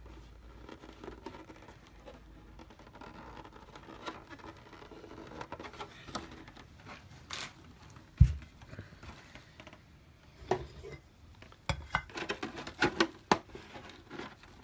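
Hands handling and flexing stiff white plastic armour parts: scraping and rustling, with one low thump about eight seconds in and a run of sharp clicks and taps near the end as a popper fastener base is fitted.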